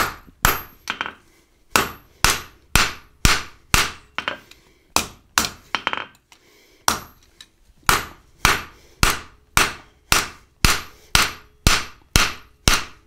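Blacksmith's rounding hammer striking red-hot steel flat bar on an anvil: steady hand-forging blows about two a second, with a short pause in the middle, each strike ringing briefly.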